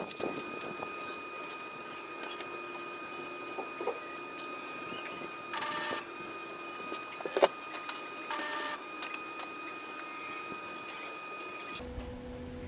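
Welder running with a steady high-pitched whine, broken twice by short bursts of arc crackle from tack welds on steel cattle-panel wire, about six and eight and a half seconds in. Near the end the whine stops and a low steady hum takes over.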